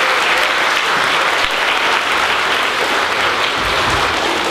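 A school assembly audience applauding: sustained, dense clapping from many hands at a steady level.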